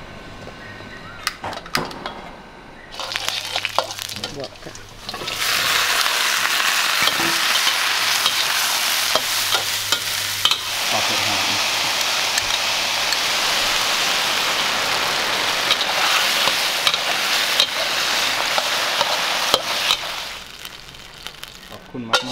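Cut luffa sizzling as it stir-fries in a wok, with a metal spatula clicking and scraping against the pan. The sizzle starts about five seconds in and dies down near the end.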